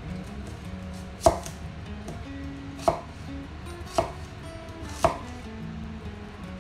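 Kitchen knife cutting a red onion on a white plastic cutting board: four sharp, unevenly spaced knocks of the blade hitting the board, over faint background music.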